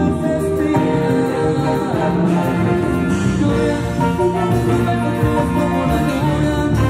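Live band playing a song: singing over a horn section of saxophone, trumpet and trombone, with drums, bass and guitar.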